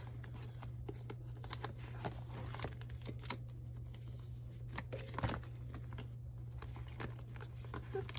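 Photocards and plastic binder sleeves being handled: soft, irregular rustling and light clicks over a steady low hum.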